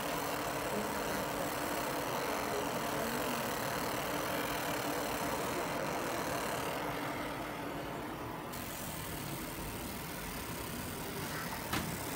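Fiber laser marking machine running while it engraves a stainless steel plate: a steady mechanical hum and hiss, the higher part dipping briefly about seven seconds in, with a single sharp click near the end.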